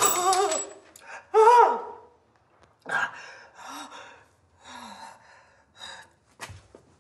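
A man's wordless vocal outbursts: two loud strained cries in the first two seconds, the second sliding down in pitch, then a run of short, quieter breathy gasps.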